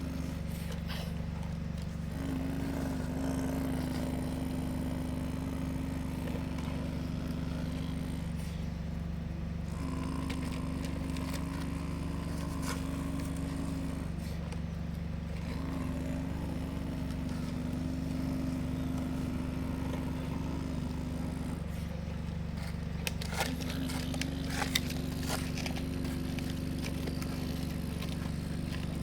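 Excavator engine running steadily, with a higher whine that cuts in and out several times as it works, and a few scrapes and knocks near the end.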